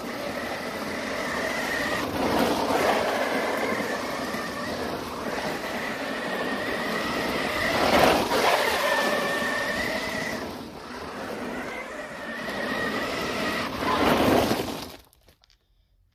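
Electric Losi Super Baja Rey 1/6-scale RC desert truck driving on loose, gritty tarmac: tyre and gravel noise with a high motor and gear whine that rises and falls with the throttle, loudest as it turns close by. The sound cuts off suddenly near the end.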